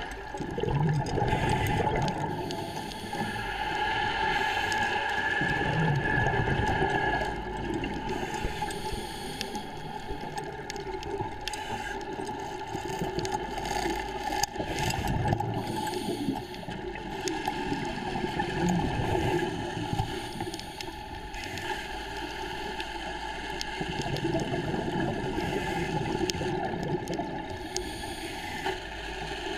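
Scuba regulator breathing underwater, with exhaled bubbles gurgling in swells every few seconds over a steady droning hum.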